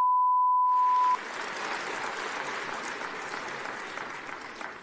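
A steady high-pitched censor bleep for about the first second, overlapping the start of audience applause. The applause carries on evenly for about four seconds and then cuts off suddenly.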